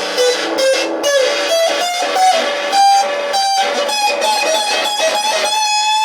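A guitar playing a quick run of picked single notes that climbs in pitch, then moves among high notes and settles on a held note near the end.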